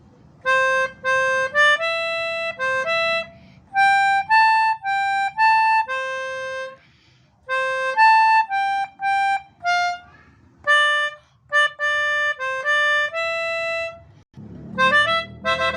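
Pianika (melodica) playing a bus 'telolet' horn tune: short, held reedy notes in repeated phrases separated by brief pauses, ending in a quick run of notes.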